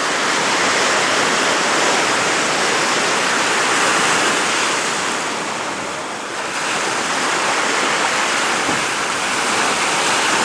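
Sea surf breaking and washing in the shallows, a steady loud rush of water that eases briefly about six seconds in.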